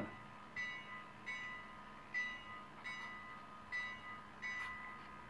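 Steam locomotive bell sound from a WOW Steam sound decoder, played through a small cell-phone speaker in the model, ringing in a steady, even rhythm a little more than once a second.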